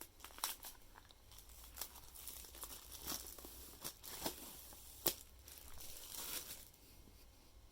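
Plastic shrink-wrap being torn and crinkled off a sealed CD album, a run of scattered rustles and sharp crackles.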